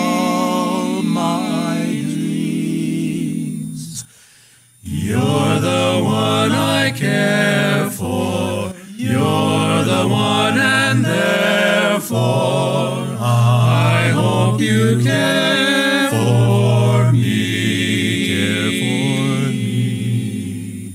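Male vocal quartet singing a cappella in close harmony, with held chords over a low bass part. The singing breaks off briefly about four seconds in.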